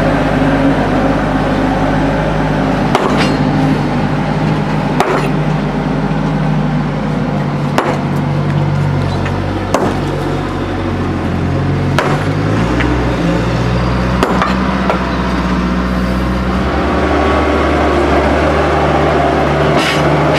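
A Bobcat skid-steer loader's engine running, its pitch shifting a couple of times. Sharp knocks of broken concrete sound about every two seconds.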